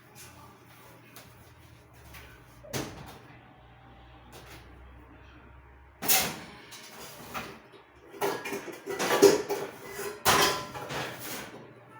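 Kitchen cupboard doors opening and closing, with knocks and clatter as things are taken out: a single knock about three seconds in, then a busier run of bangs and clatter in the second half.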